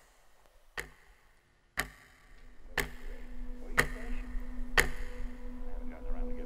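Wall clock ticking once a second, each tick sharp and clear. A low steady drone swells in behind the ticks from about two seconds in.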